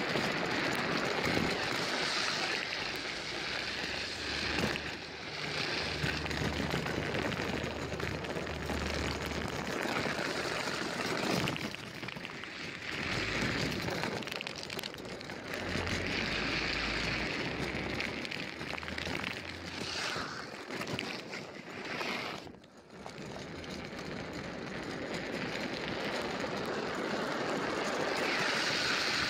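Wind rushing over the microphone of a camera riding on a moving drift trike, mixed with the rumble of its hard wheels rolling and sliding on asphalt. The noise is steady, with a brief lull about three quarters of the way through.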